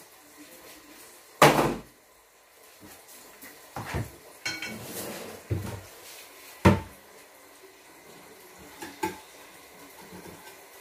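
Kitchen clatter: several separate knocks and bangs of things being handled and set down on the counter or in the cupboards, the two loudest about a second and a half in and near the middle.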